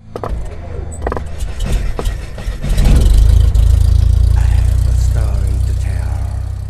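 An engine running with a loud, steady low rumble that swells about three seconds in and eases off near the end, with a few clicks and a brief voice over it.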